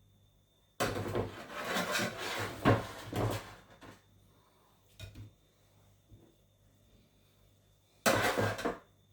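Kitchen handling noises: two stretches of scraping and rustling, the second short and near the end, with a couple of light knocks in between.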